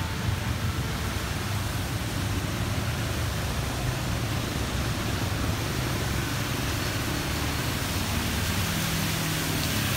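Steady hiss with a low rumble. Near the end a motor scooter's engine grows louder as it rides toward the listener through the floodwater.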